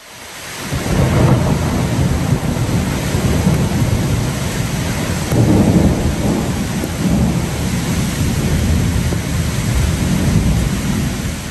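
Wind buffeting the microphone: a loud, rough low rumble that swells and eases in gusts.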